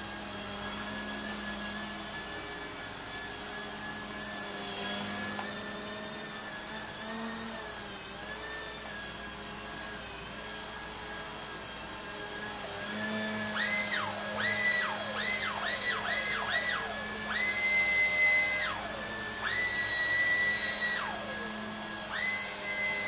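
Electric motors of a small toy RC helicopter whining in flight over a steady low rotor hum. From about halfway a higher whine spins up and falls away again and again, in quick short bursts at first and then in longer held stretches, as the sticks are worked.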